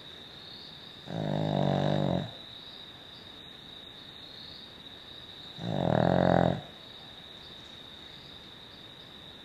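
Cavalier King Charles Spaniel snoring: two loud snores about four seconds apart, each lasting about a second. A steady high whine runs underneath.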